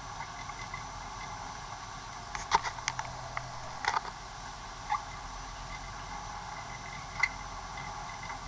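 A few sharp clicks and knocks over a steady hiss: a quick cluster between about two and a half and four seconds in, then single clicks around five and seven seconds.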